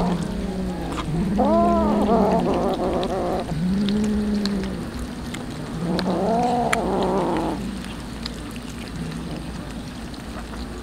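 Cats eating raw tuna, one giving low, drawn-out meows that rise and fall in pitch, three times, with small clicks of chewing between.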